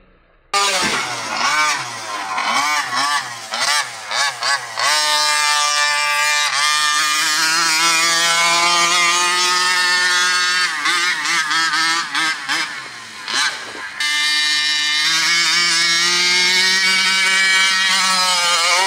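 Two-stroke 49cc TMR Performance engine with its expansion pipe in a Primal RC Raminator monster truck, revved in quick blips for the first few seconds, then held at a high, buzzing rev that slowly climbs. It breaks off abruptly partway through, comes back at high revs and falls near the end. The engine is on its first tank of fuel and still being tuned.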